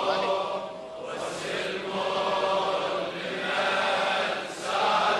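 A crowd of many voices chanting a religious refrain together in slow, drawn-out phrases that swell and ease.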